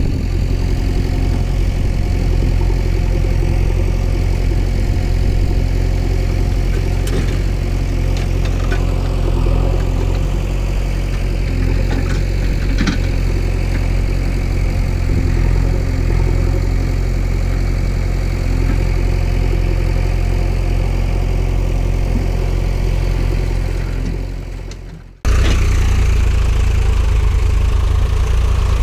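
Steady engine idling sound laid over toy vehicles. It fades out about 24 seconds in, then cuts suddenly into a louder engine sound.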